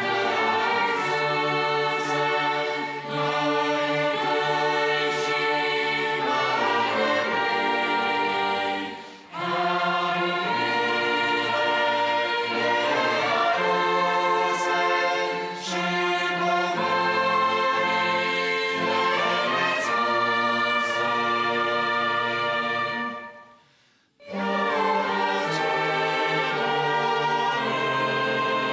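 Choir singing a hymn in Romanian with a string orchestra of violins and cellos. The music breaks off briefly about a third of the way in, and again almost to silence for a moment near the end, before starting up again.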